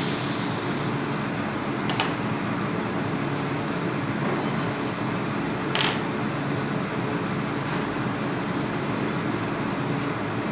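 Steady machinery hum in the background, with two brief metallic clicks from a T-handle hex key working the bonnet bolts of a cast-iron ammonia valve, about two seconds and six seconds in.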